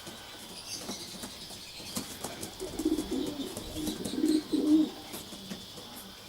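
Racing pigeons cooing: a run of low, throaty, pulsing coos from about two and a half seconds in until nearly five seconds, with faint small clicks and scuffs around them.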